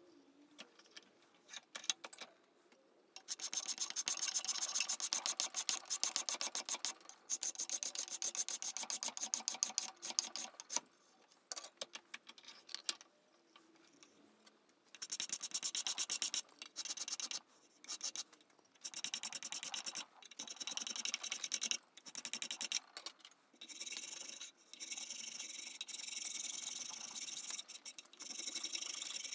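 Hand tool rasping and scraping along a hickory hammer handle clamped in a vise, shaping it into facets. It goes in runs of quick strokes, starting a few seconds in, pausing for a few seconds in the middle, then resuming.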